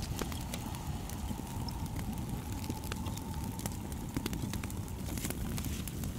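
Wood campfire crackling and popping over a low rumble, with a faint steady whine that fades out about five seconds in.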